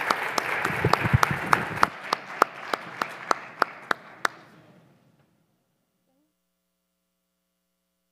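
Audience applauding, dense at first, then thinning after about two seconds to a few separate claps, about three a second, that fade away about five seconds in.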